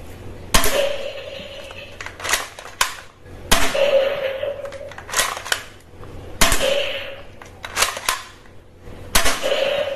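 Toy machine gun firing soft foam bullets one at a time: about a dozen sharp pops at irregular intervals, several followed by a short ringing tone.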